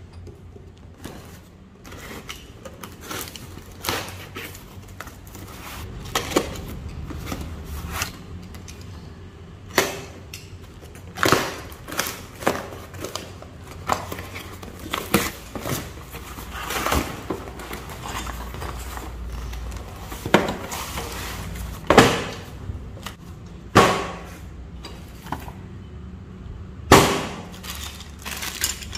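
Cardboard packaging being opened by hand: tape slit with a utility knife, corrugated cardboard wrapping pulled and torn back, and boxed parts and plastic bags of fittings handled and set down. Irregular rustling and crinkling broken by sharp knocks, a few of them loud.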